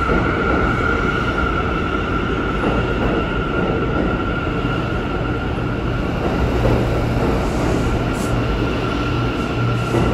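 R179 subway train pulling out of the station and rolling past, a steady loud rumble of wheels on rail with a constant high tone over it.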